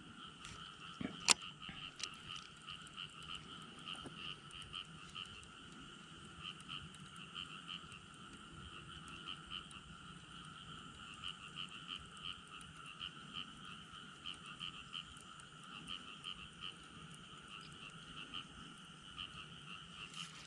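A faint chorus of frogs calling, a fast pulsing trill at two pitches that goes on without a break. A single sharp click about a second in.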